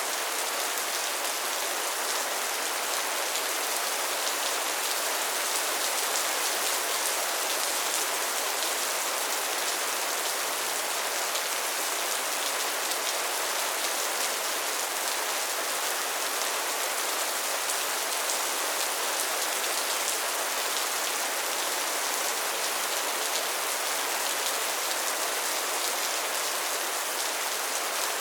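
Steady rain falling, an even hiss of many drops pattering on a surface.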